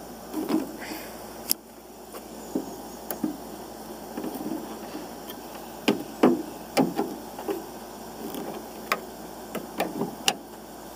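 Scattered, irregular metallic clicks and knocks from an adjustable wrench on a Phillips screwdriver's flattened shaft. The wrench is levering the door hinge screws of a classic VW Beetle loose.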